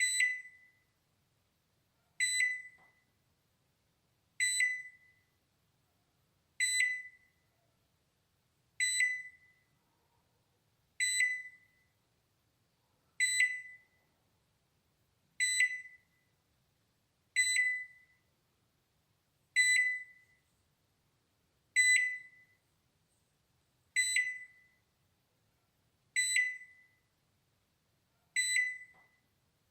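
Balay microwave oven alarm beeping: one short high-pitched beep about every two seconds, each ringing out quickly, repeating evenly.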